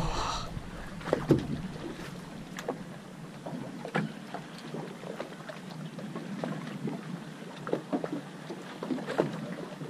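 Small fishing boat at sea: water lapping against the hull over a steady low rumble, with scattered short knocks and taps.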